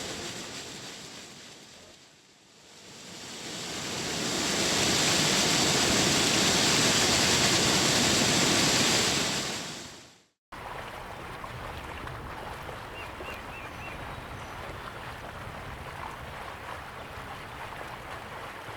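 Rushing water of a waterfall: a steady hiss that swells in over the first few seconds, cuts off abruptly about ten seconds in, then carries on more quietly.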